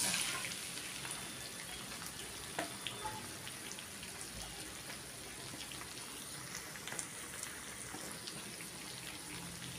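Hot melted butter in a small frying pan sizzling as a green curd-and-milk masala is poured in; the sizzle dies away within the first second, leaving a faint, steady simmer with scattered small pops.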